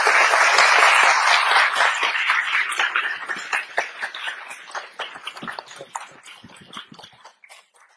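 Audience applauding: many hands clapping, loud at first and then thinning out and dying away over about seven seconds.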